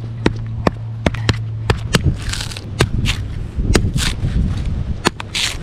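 A coconut being knocked open with a hard tool: a dozen or more sharp knocks at irregular spacing, with two short scraping sounds, one about two seconds in and one near the end.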